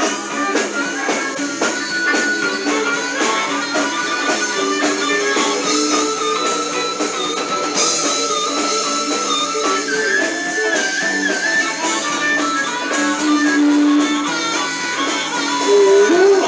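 Blues band playing an instrumental passage: a guitar lead line with bends and vibrato over a steady drum beat.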